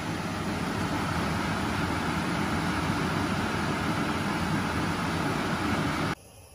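A wide pan of beef shank in braising liquid boiling hard on a gas stove: a steady rushing, bubbling noise that cuts off abruptly near the end.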